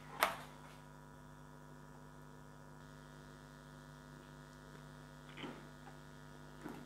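Faint, steady electrical mains hum made of many even tones, with one short sharp click just after the start and a couple of faint soft sounds near the end.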